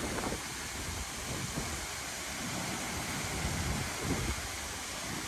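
Steady rush of a strong waterfall, with wind buffeting the microphone.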